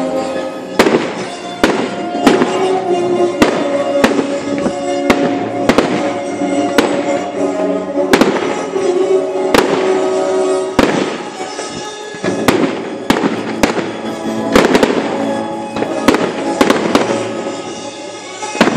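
Aerial fireworks bursting in an irregular series of sharp bangs, with music playing underneath.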